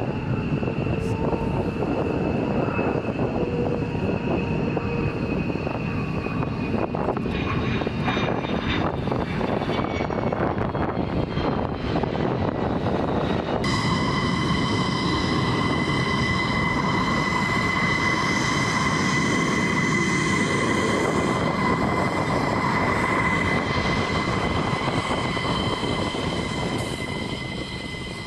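F-16 Fighting Falcon's single jet engine running as the fighter lands and rolls out on the runway: a steady, loud rumble with a high whine. About halfway through the sound changes abruptly and the whine gets stronger, and it fades near the end.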